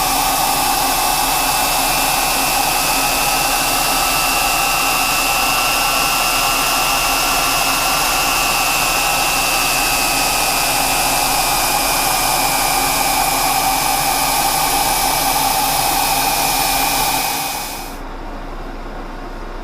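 Loud steady hiss of a lathe's compressed-air mist coolant spraying onto the cut as a steel shaft turns, with a thin steady whine above it. The hiss cuts off sharply near the end, leaving the quieter hum of the running lathe.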